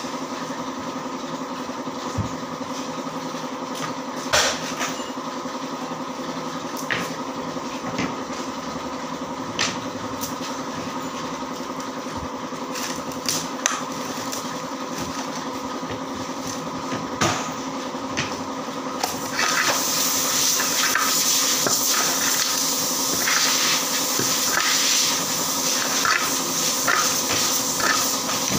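Workshop machinery running with a steady motor hum, with occasional sharp knocks of boards being handled. About two-thirds of the way in, a steady high hiss starts and the sound grows louder.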